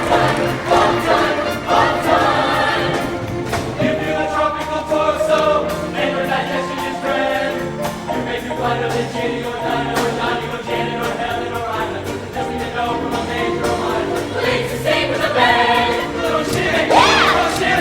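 Show choir singing in parts with its live instrumental band, a bass line moving underneath.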